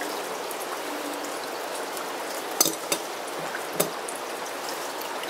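Steady rain pattering, with three sharp metallic clinks a little past the middle as the aluminium parts of a Trangia cook set and a spatula are handled.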